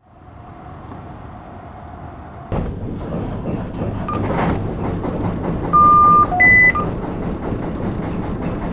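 Beeps from the wheelhouse electronics being switched on: a few short blips, one long steady beep, then a shorter, higher one. Under them is the steady rumble of the lobster boat's engine, which comes in suddenly about two and a half seconds in.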